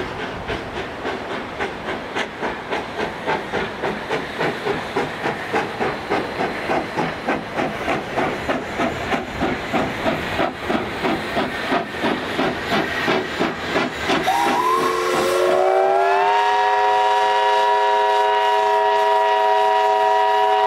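Steam locomotive working steadily with a regular beat of exhaust chuffs. About two-thirds of the way through, its whistle opens, rising briefly in pitch, then holds as a steady chord of several notes.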